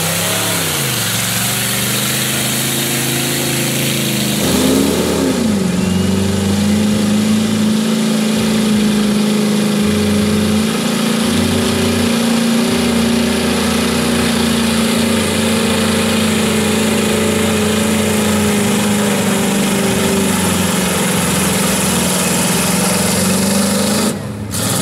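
Lifted Chevrolet Z71 pickup's engine revving under load as the truck pushes through a mud pit on oversized tyres. It rises and falls a couple of times in the first few seconds, then holds at a nearly steady high rev for most of the rest, with a brief drop near the end.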